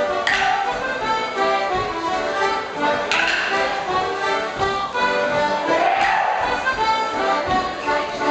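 Live Morris dance tune played steadily on a free-reed instrument. Over it come sharp clacks of the dancers' wooden Morris sticks being struck together, three times, about three seconds apart.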